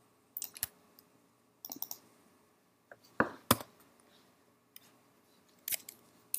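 Scattered computer mouse and keyboard clicks: single clicks and short clusters, the loudest a pair about three seconds in.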